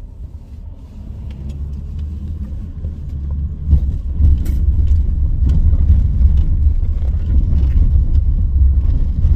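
Car driving with a steady low tyre and road rumble, growing louder about three and a half seconds in as it rolls onto the planked deck of a steel truss bridge.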